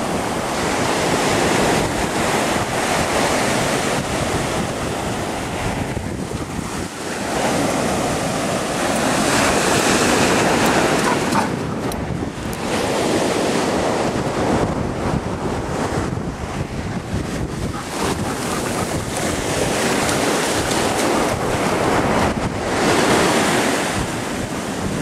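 Ocean surf breaking and washing up the beach, a continuous rushing that swells louder with each set of waves, with wind buffeting the microphone.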